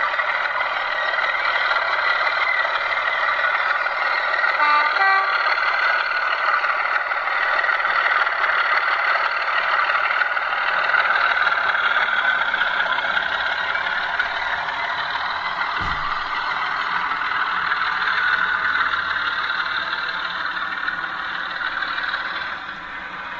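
A Digitrains sound chip in a model Class 25 diesel locomotive plays a diesel engine running steadily through the model's small speaker as the locomotive moves along the track. A short run of brief tones comes about five seconds in, and a single sharp click about sixteen seconds in. The engine sound drops a little near the end.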